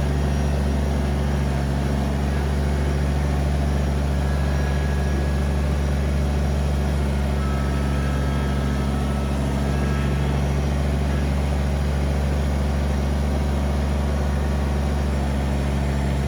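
Kubota BX23S compact tractor's three-cylinder diesel engine running at a steady speed, a constant low hum that neither revs up nor drops.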